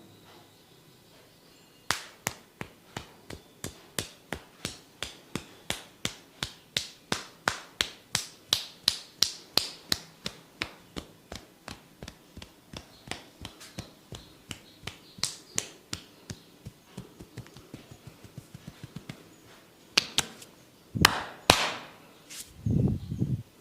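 Percussive head-massage strokes: a quick run of sharp taps, about four a second, that grows sparser and fainter through the middle, followed by a few louder knocks near the end.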